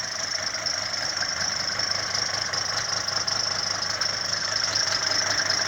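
An engine running steadily at idle, growing slightly louder over the few seconds.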